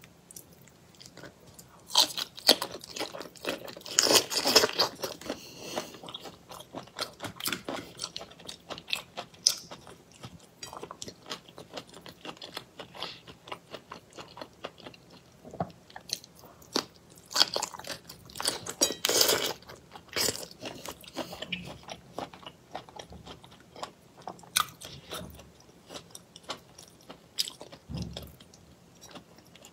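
Raw shrimp in a spicy chili marinade being peeled by hand and eaten, heard close on a clip-on microphone. Shells crack and crackle in quick, irregular clicks, with wet chewing and biting. The sound is loudest in clusters a few seconds in and again past the middle.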